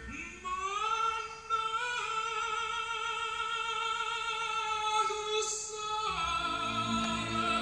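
Operatic singing played back through a Pioneer SR-303 reverb unit and HPM-1500 speakers: a voice, likely female, holds one long note for about five and a half seconds, then the orchestral accompaniment comes back in.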